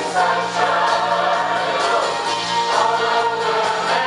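A mixed choir of men's and women's voices singing together in held notes.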